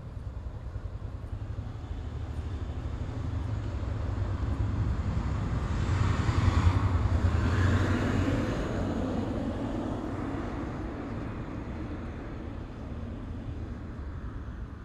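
A vehicle passing by: its sound swells to a peak about halfway through and then fades away, over a steady low rumble.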